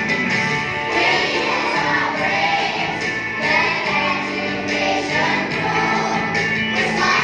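A group of young children singing together as a choir over instrumental music.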